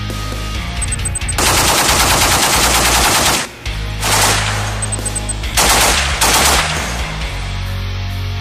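K6 .50-calibre heavy machine gun firing: one long burst of about two seconds, then three short bursts, loud over a rock music bed.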